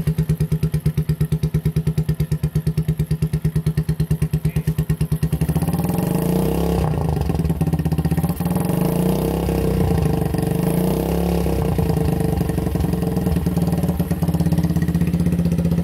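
Keeway Cafe Racer 152's single-cylinder four-stroke engine running through a custom slender exhaust with an internal baffle. It idles with evenly spaced, lumpy pulses, then from about five seconds in it is revved, its pitch rising and falling.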